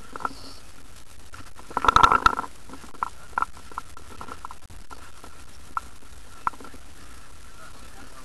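Handling noise on a camera mounted on a paintball marker: a steady faint high whine, a scuffling burst about two seconds in, and a few short soft clicks.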